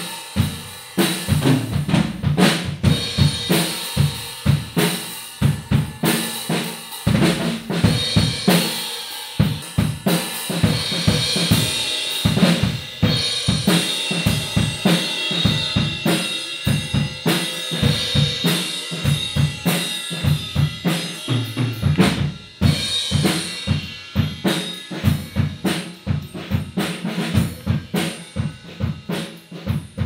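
Acoustic drum kit played steadily, with kick, snare and a continuous wash of cymbals, behind a ClearSonic clear-panel drum shield with no top cover.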